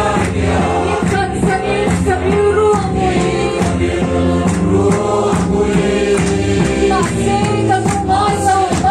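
Congregation of men and women singing a Mizo hymn together, clapping in time with the beat of a large Mizo drum (khuang) struck with a stick.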